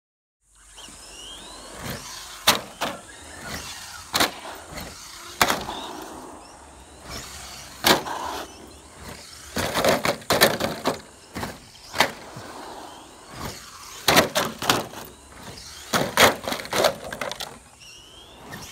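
Kyosho Ultima SC6 1/10-scale electric short course RC truck running over ramps on asphalt: repeated sharp clacks and thuds as it lands, bounces and tumbles on the road. Short rising whines of its electric motor and tyre noise come between the impacts.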